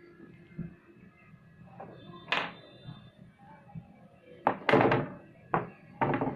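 A few sharp thunks and knocks on a tabletop as large tailor's shears are handled and cloth is smoothed flat: one about two seconds in, then a quick cluster near the end.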